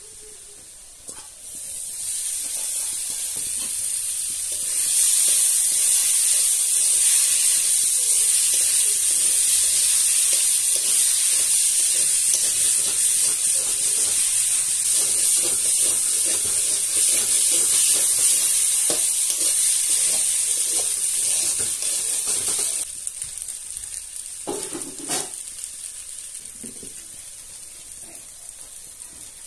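Maggi noodles and fried onions sizzling in hot oil in a metal pan, stirred and scraped with a spoon. The steady sizzle builds over the first few seconds and stays loud, then drops suddenly about three-quarters of the way through and fades as cooked rice is tipped in.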